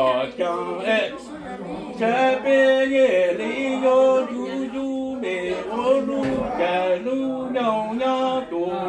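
A man chanting Hmong lug txaj sung poetry, unaccompanied. He holds long, steady notes that bend and glide at the ends of phrases, with short breaths between phrases every couple of seconds.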